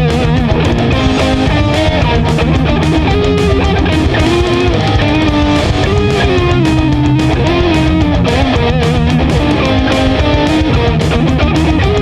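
Background music: rock with electric guitar over a steady beat.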